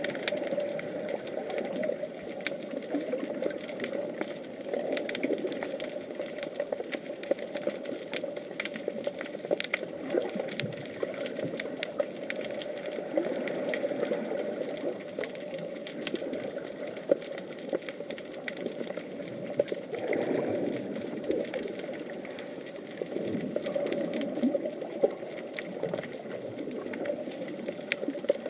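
Underwater ambience picked up by an action camera in its waterproof housing: a steady muffled low rushing sprinkled with many small clicks and crackles.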